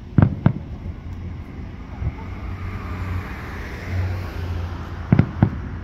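Aerial fireworks bursting in two quick double bangs, one pair just after the start and another near the end, over a steady rumble of traffic with a car passing in between.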